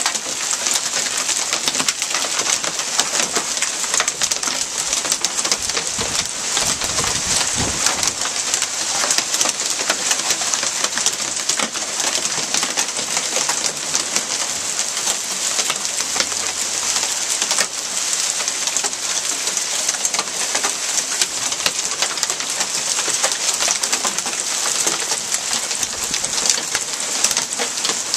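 Hail and rain falling steadily on a wooden deck, mulch and lawn, with half-inch to one-inch hailstones in the storm: a dense, even hiss dotted with many small sharp ticks of stones striking.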